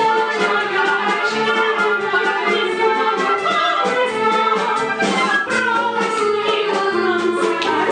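Live theatre orchestra playing a musical-theatre number.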